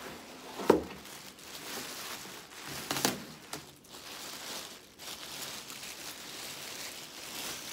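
A cardboard shipping box being opened and handled, with a sharp knock under a second in and another about three seconds in, then a clear plastic bag crinkling steadily as it is handled.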